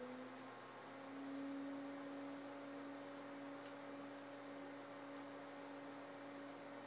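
Electric pottery wheel's motor whining as the wheel spins: a steady hum that rises slightly in pitch as it comes up to speed, then holds.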